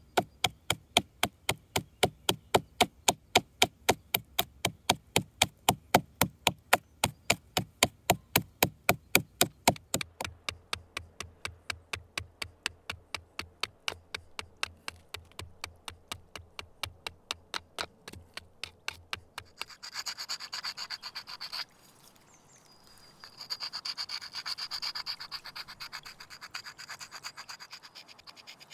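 Bone-bladed adze, a deer metacarpal head on a yew handle, chopping into dry willow wood in rapid, regular strokes, several a second. After about twenty seconds the chopping stops and a whetstone scrapes back and forth over the bone blade to resharpen it, in two spells with a short pause between.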